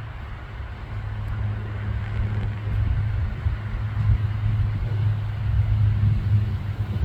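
Low, steady engine hum of a passing motor vehicle, growing louder over several seconds and easing off near the end.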